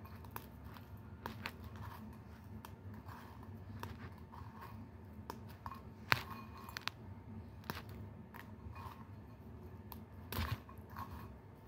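Faint handling noises: scattered light clicks and taps of a utensil and dish being handled, with a sharper tick about six seconds in and a dull thump near the end, over a steady low hum.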